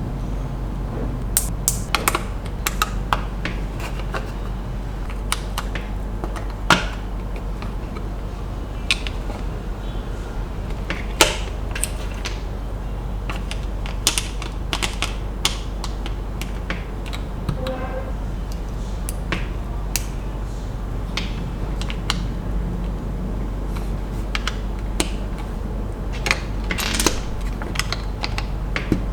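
Small toy building bricks clicking and tapping as they are handled and pressed together, in irregular sharp clicks, over a steady low hum.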